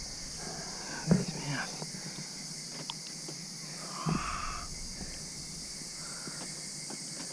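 Steady high-pitched insect chorus, with brief low murmured voices and a few faint ticks.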